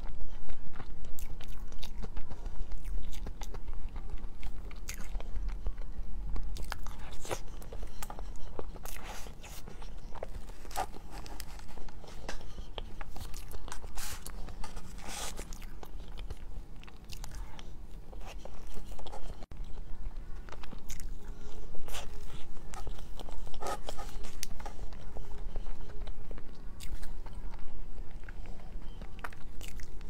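Close-miked chewing and mouth sounds of a person eating layered chocolate crepe cake, with many scattered sharp clicks and smacks.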